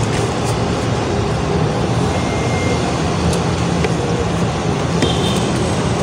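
Steady street traffic noise, engines running, with a few light ticks on top.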